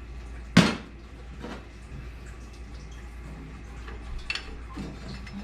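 One sharp knock about half a second in, then a few softer knocks and taps, over a steady low hum: hand tools working on the rusty screws that hold a water heater's circulating pump to its flanges.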